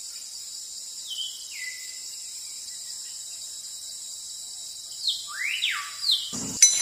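Outdoor ambience: a steady, high-pitched chorus of insects such as crickets, with a few bird calls that slide in pitch about a second in and again around five to six seconds. A brief burst of noise comes near the end.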